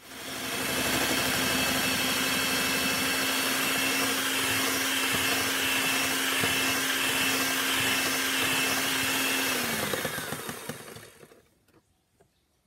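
Electric hand mixer whipping a gelatin-and-sweetener marshmallow mixture. It starts at once and runs with a steady hum, then is switched off about ten seconds in, its pitch falling as it winds down.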